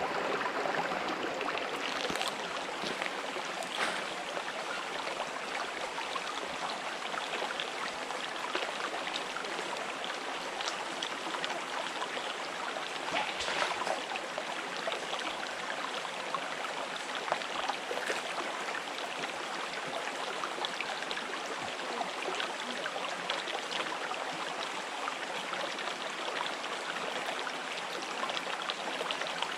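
A river running over rocks: a steady rush of flowing water with small splashes and gurgles scattered through it.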